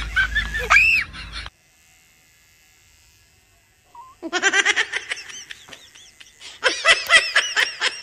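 People laughing in quick repeated bursts. The laughter cuts off about a second and a half in, there are a couple of seconds of near silence, and then laughing starts again about four seconds in and runs on.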